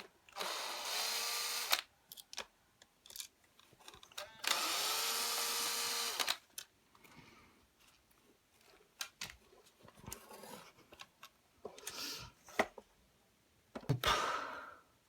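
Hair dryer's motor and fan whirring up and dying away in two short bursts, with a few weaker, shorter spurts near the end. The power cuts in and out, which the repairer puts down to a fault in the power cord.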